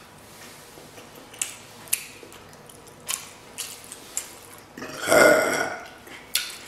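Close-up mouth sounds of someone chewing food: a few sharp, wet clicks, then a loud burp about five seconds in, lasting about a second.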